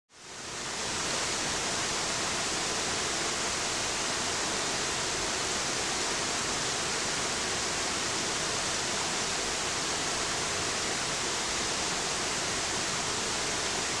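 River water rushing over rocks and small cascades, a steady even rush that fades in over the first second.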